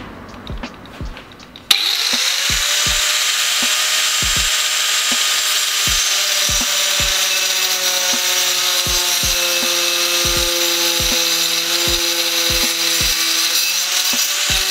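Angle grinder fitted with a 115 mm tungsten-carbide-grit wood-cutting disc, cutting into plywood. It comes in suddenly about two seconds in, then holds a loud, steady whine and rasp whose pitch sags slowly as the disc works in the cut.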